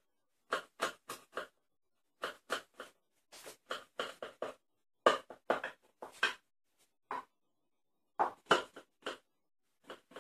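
A large kitchen knife sawing through layers of raw buttered filo pastry with a walnut and almond filling in a glass baking dish, in short strokes that come in quick runs of three to five with brief pauses between.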